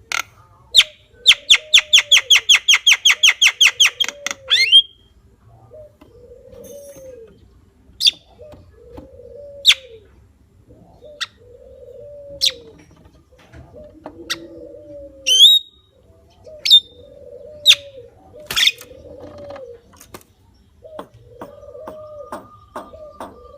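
Javan myna calling: a fast rattling run of about twenty sharp notes, some six a second, then scattered single sharp chips and short whistles. A low cooing note repeats about every second and a half underneath.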